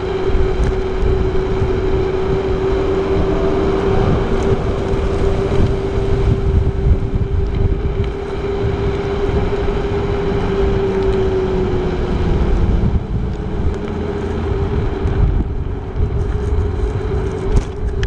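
Gyroor Urban Max C1 electric scooter being ridden: its motor gives a steady whine over wind buffeting the microphone and road rumble. The whine dips slightly and weakens about two-thirds of the way through.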